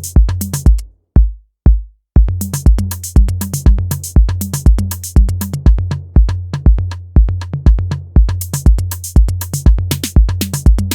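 Roland TR-8 drum machine playing a steady electronic beat of deep, booming kicks about twice a second under crisp hi-hats. About a second in, the hats drop out and only the kick sounds; the full pattern comes back about two seconds in.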